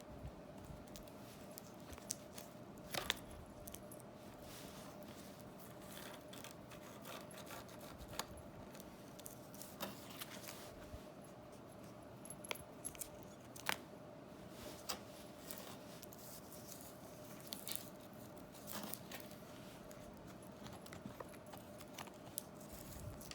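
Budgie picking at and tearing paper with its beak: scattered small clicks, snips and crinkles, a few louder ones, over a faint steady hum.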